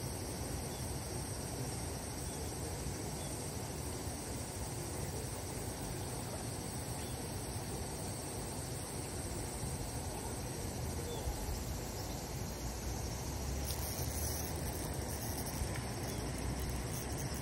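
Steady chirring of insects over a low wind rumble.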